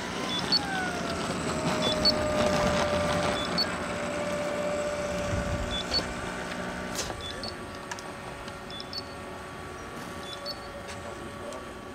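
120 mm Schuebeler ducted fan in a model L39 jet whining at taxi throttle. The whine drops in pitch over the first two seconds as the throttle comes back, then holds steady, and grows quieter after about seven seconds as the jet rolls to a stop.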